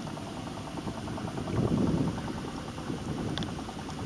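Small boat engine running steadily, with a louder rush of noise about one and a half seconds in.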